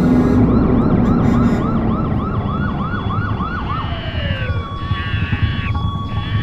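Cartoon sound effect: a loud rumbling noise under a fast warbling, siren-like tone that rises and falls about three or four times a second, then slides down and breaks off about four seconds in, leaving wavering high tones.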